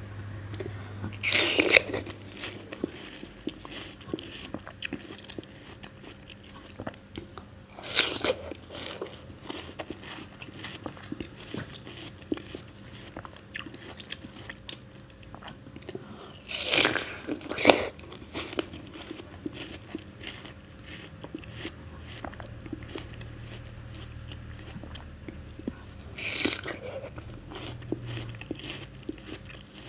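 Close-miked bites into crisp watermelon: five loud crunching bites, two of them close together near the middle, with steady chewing between them.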